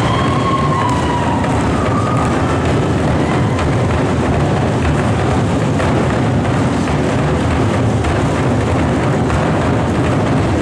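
Tongan drum ensemble beating large drums with sticks, a fast, loud, continuous drumming with the strokes running together into one din. A brief high tone sounds over it in the first second or so.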